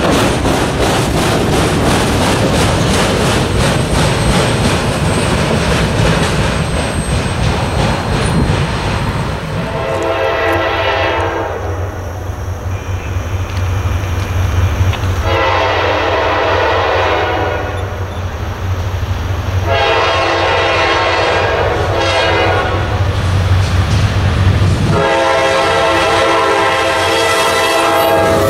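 A freight train's railcars rolling past with wheel clatter, then a Norfolk Southern locomotive's multi-tone air horn blowing four blasts for the grade crossing as the train approaches, over the low hum of its diesel engine. The first blast is short, the others longer, and the last is still sounding as the locomotive reaches the crossing.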